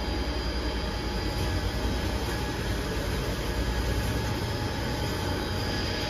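Industrial wood-waste shredder and its belt conveyors running steadily: a continuous low mechanical rumble with a faint steady whine on top.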